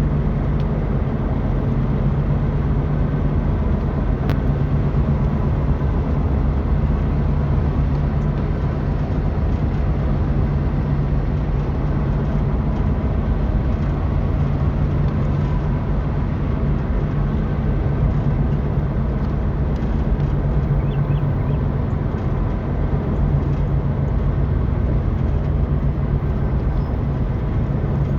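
Polaris Xpedition side-by-side UTV running at a steady pace, a constant engine drone with no change in speed.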